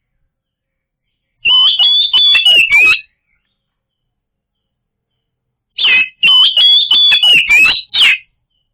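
Oriental magpie-robin (kacer) singing loudly in two separate phrases of sharp, rapid whistled notes mixed with clicks, the first starting about a second and a half in and the second about six seconds in, with silence between.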